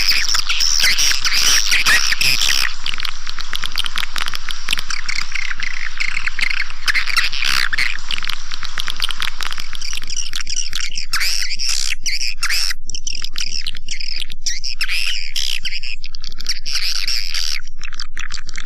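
Swiftlet calling sound: a dense chorus of high chirping and twittering swiftlet calls, played as a lure for a swiftlet house. It runs as an unbroken mass at first, then breaks into separate bursts of chirps with short gaps about halfway through.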